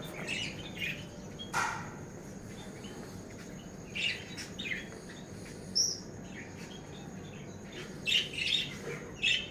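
Birds chirping in short scattered bursts, with a steady low hiss underneath and one sharper call about a second and a half in.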